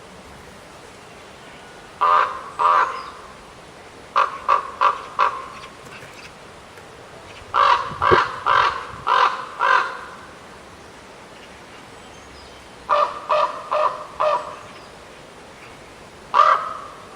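A corvid cawing: harsh calls in quick bouts of two to six, with short pauses between bouts and a single call near the end.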